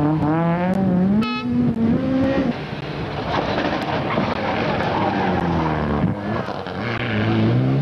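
Rally cars at full throttle: a Citroën Saxo rally car revving hard through a corner, its engine note rising and falling with the throttle, then a Mitsubishi Lancer Evolution's turbo four-cylinder accelerating out of a bend. There is a harsher, noisier stretch in the middle.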